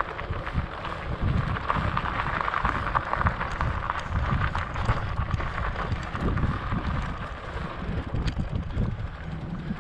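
Salsa Mukluk fat bike's wide tyres rolling over a gravel track, with a constant gritty crackle, while wind buffets the microphone in irregular low gusts.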